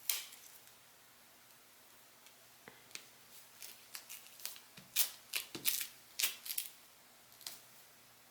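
Small objects handled on a tabletop: a sharp click at the start, then after a short pause a run of irregular clicks and rustles, the loudest a little past the middle.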